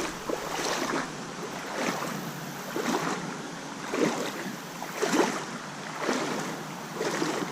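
Boots wading through a shallow creek, the water splashing with each step about once a second over the steady rush of the stream.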